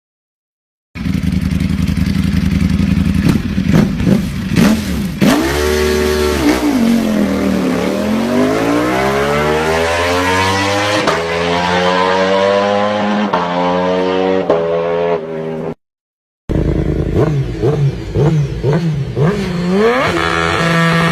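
Motorcycle engine being revved, its pitch sweeping down and back up again and again, with the sound cutting out completely twice for under a second.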